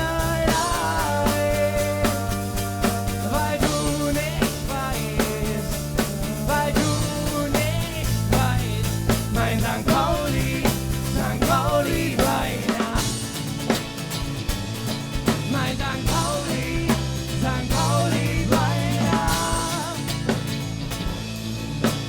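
Live rock band playing an instrumental passage: a steady drum-kit beat and a bass line that moves every couple of seconds, under a lead line of bending, sliding notes.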